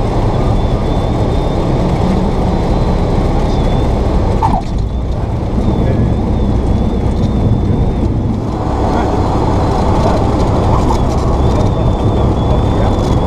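Cessna 172's piston engine and propeller running with a steady loud drone, heard from inside the cabin, with two brief dips in level about four and a half and eight and a half seconds in.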